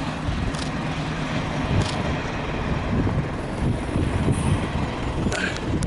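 Steady low engine rumble, with a few faint clicks.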